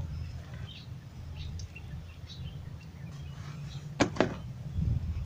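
Plastic plant pot knocked twice in quick succession about four seconds in, as loose potting soil is tipped out of it. Under it run a steady low rumble and faint bird chirps.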